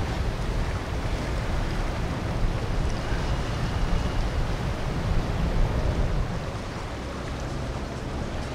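Wind buffeting the microphone over a wash of water and the rumble of boat traffic, easing slightly about six seconds in.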